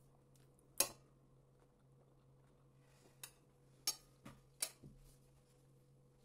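A fork clinking against a plate: one sharp clink about a second in, then four more in quick succession between about three and five seconds in, over a faint steady hum.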